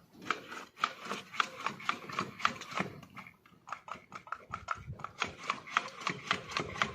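Irregular metallic clicks and knocks, several a second, from the removed dual-mass flywheel being handled and turned by hand while it is checked for a worn bearing or broken springs.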